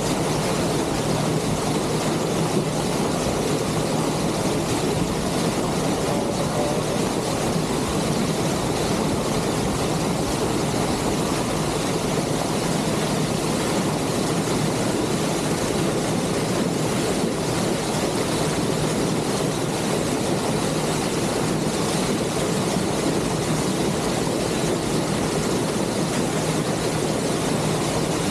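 Passenger motor ship under way: a steady engine drone with the rush of water along the hull.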